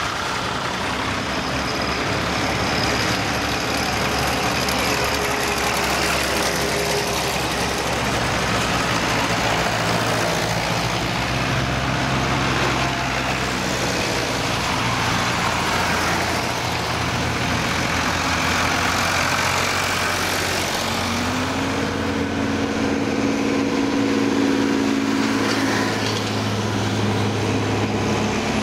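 Vintage tractor engines running as a line of old tractors, a blue Fordson and a grey Ferguson among them, drives past one after another. About twenty seconds in one engine's note rises and holds higher.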